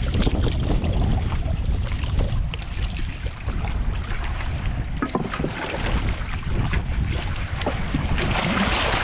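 Wind buffeting the microphone, with water washing against jetty rocks and a few sharp clicks.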